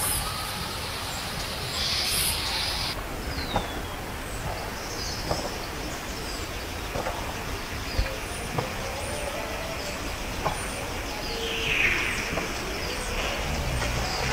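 Steady low outdoor rumble with scattered short, high bird chirps and a few faint clicks.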